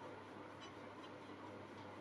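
Very quiet room tone: a steady faint hiss with a low hum and two faint ticks about half a second and a second in.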